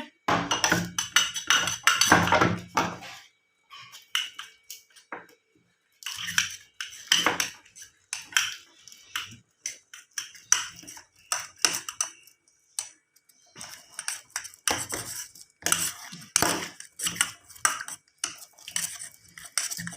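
A spoon stirring slime glue and activator in a bowl, clinking and scraping against the bowl in quick irregular strokes, with a few brief pauses.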